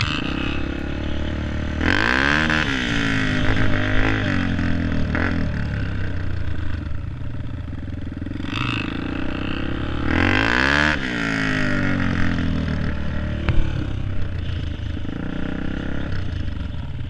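Dirt bike engines: one idles steadily throughout, while engine revs climb and fall away twice, about two seconds in and again about ten seconds in.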